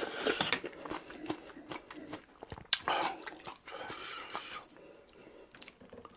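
Close-up eating sounds: a slurp of stew broth from a spoon at the start, then wet chewing with small mouth clicks.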